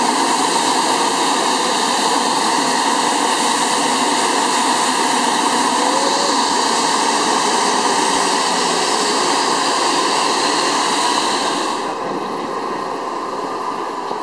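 Airbus A350-900's Rolls-Royce Trent XWB turbofan engines running at taxi power: a steady jet noise with a high whine. About twelve seconds in the whine falls away and the sound gets somewhat quieter.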